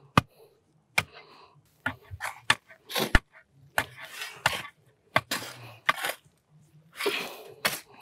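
Backfill soil being compacted by hand: irregular sharp knocks from a wooden hand rammer and a shovel striking the ground, with short scrapes of the shovel through loose soil.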